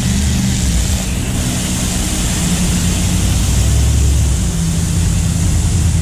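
Hose-end spray nozzle washing an HVAC condenser coil with foaming coil cleaner, a steady hiss of spraying water, over a steady low mechanical drone.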